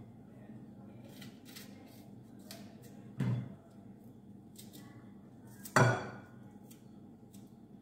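Kitchen knife knocking and scraping on a ceramic plate while cutting vegetables on it: light clicks, then two sharper knocks about two and a half seconds apart, the second the louder, with a brief ring from the plate.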